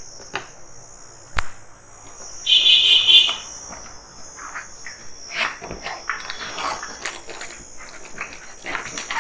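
Sealing tape peeled off a cardboard LEGO set box, a short rasping rip about two and a half seconds in, followed by cardboard scraping and rustling as the box flap is pulled open. A steady high-pitched whine sits in the background throughout.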